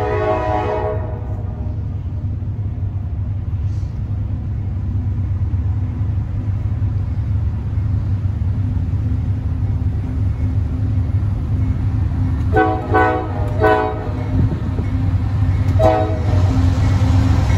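Horn of an approaching CSX freight led by a CM44AC diesel locomotive: a blast that ends in the first second, two short blasts about twelve and a half seconds in, and a brief toot near the end. Under it runs the steady low rumble of the locomotives' diesel engines, growing louder as the train draws near.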